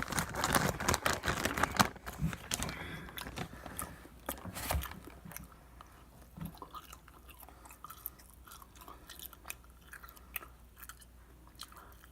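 A person chewing food close to the microphone, with wet mouth clicks and smacks; the chewing is loudest and densest for the first two seconds, then goes on quieter and more scattered.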